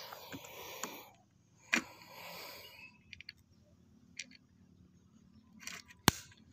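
Multi-pump pneumatic air rifle (Canon 747, charged with four pumps) fired once: a single sharp crack about six seconds in, the loudest sound. Before it, soft rustling handling noise and a light click.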